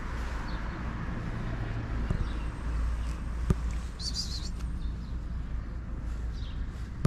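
Outdoor background: a steady low rumble of wind on the microphone and distant traffic, with a short high bird chirp about four seconds in and a single light click just before it.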